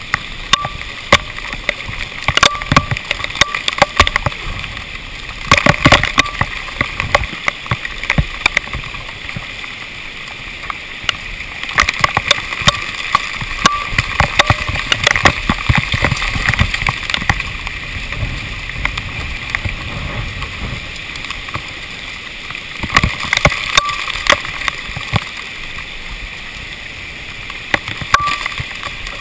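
Hailstones striking a GoPro's plastic waterproof housing: a dense, irregular patter of sharp ticks and taps, heavier in spells.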